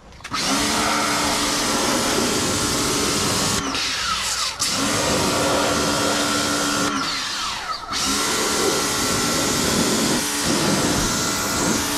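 Ingco 1400W electric pressure washer starting up and running with a steady motor hum, its water jet hissing against a car's wheel and wheel arch. The motor cuts out briefly twice, about four and seven seconds in, winding down and starting up again each time.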